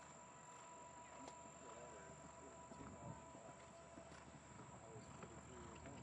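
Near silence: faint outdoor ambience with a steady high-pitched whine and faint distant voices.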